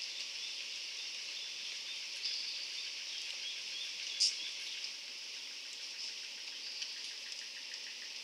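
Steady high-pitched insect chorus with faint, evenly repeating chirps, and one short, higher, louder call about four seconds in.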